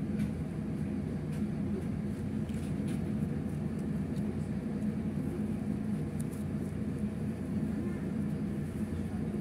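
Steady low rumble and hum inside a Belkommunmash BKM 60102 tram standing still, mixed with traffic alongside, with a few faint ticks.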